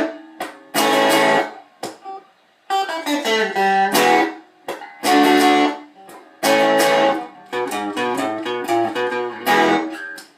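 Stratocaster-style electric guitar played in loud, separate strummed chords, each struck hard and left to ring briefly, with short runs of single notes in between.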